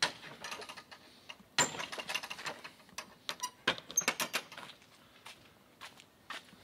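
Irregular clicks, taps and short rattles of footsteps on stone paving slabs and of a hand-held camera being handled, the loudest about one and a half seconds in and again near four seconds.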